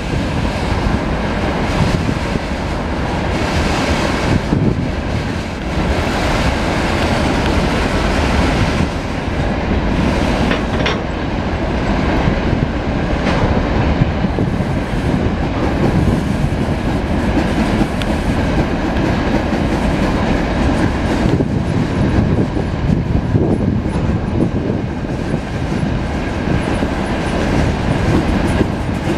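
Freight wagons of a slow mixed freight train rolling by: a steady rumble of steel wheels on the rails with a few sharper clicks.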